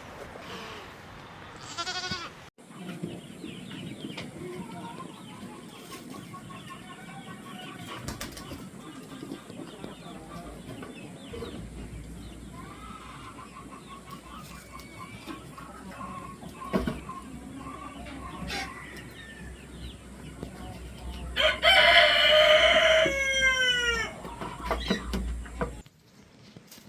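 Chickens clucking softly, then a rooster crows loudly, a long call that drops in pitch at its end.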